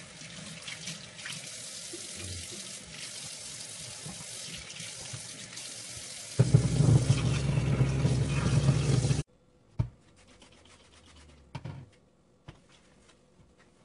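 Kitchen faucet running into the sink during dishwashing, a steady hiss that turns louder and deeper for about three seconds past the middle, then stops abruptly. A few faint knocks of dishes follow in the quiet.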